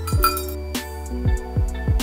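Background music with a deep sustained bass line, drum hits that drop in pitch, and short bright notes on top.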